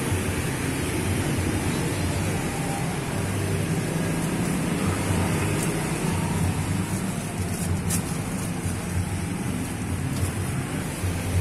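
Steady low drone of engines and road traffic, with a couple of short sharp clicks partway through.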